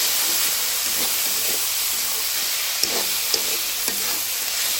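Chopped banana stem frying in a pan, sizzling steadily, with a spatula stirring it and scraping the pan and a few light taps about three seconds in.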